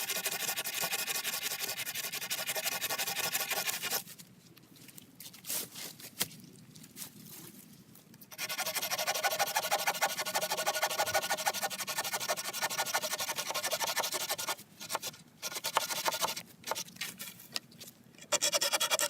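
Bahco hand saw cutting through a wooden pole: a long run of sawing strokes, a pause of about four seconds, a longer run, then a few short strokes near the end.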